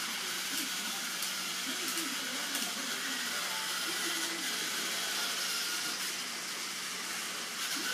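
Steady hiss with a low, even hum underneath, and faint wavering voices in the background.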